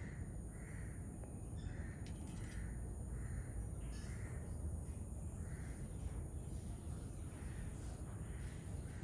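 A bird repeating a short, rough-toned call about once a second, fading toward the end, over a steady low background rumble.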